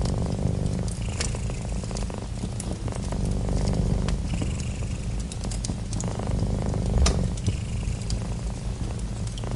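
Domestic cat purring steadily, swelling in slow cycles with each breath, with fireplace crackles and pops scattered over it; one louder pop about seven seconds in.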